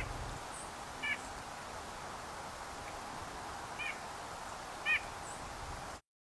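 A bird giving short, clipped calls, about four of them spaced a second or more apart, over a steady background hiss that cuts off suddenly near the end.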